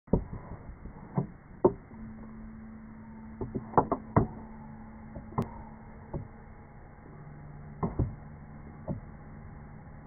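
Handling noise from a handheld recording device: about a dozen sharp knocks and bumps at irregular intervals, some in quick pairs, over a faint steady low hum.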